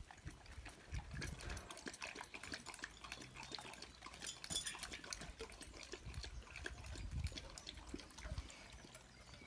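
Dogs eating meaty bones and bone broth: irregular wet lapping, chewing and small clicks.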